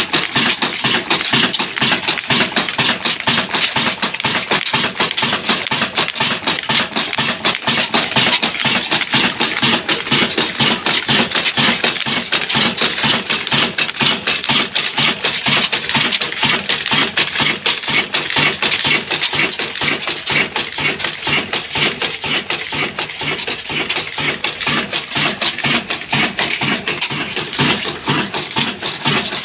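Old stationary diesel engine of the Ruston & Hornsby type running steadily, with a fast, even clatter of its valve gear and fuel pump linkage.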